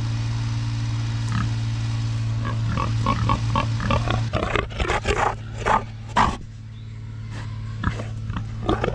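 Pigs squealing and grunting in a run of short calls, loudest around the middle, over a steady low hum that stops partway through.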